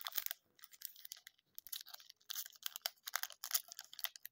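Foil football-card pack wrapper crinkling and tearing as it is pulled open by hand, an uneven run of quick crackles.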